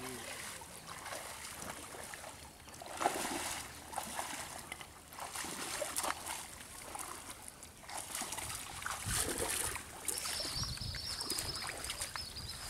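Water splashing and sloshing in irregular bursts as a cast net is hauled in by hand through a shallow pond. A steady high whine comes in near the end.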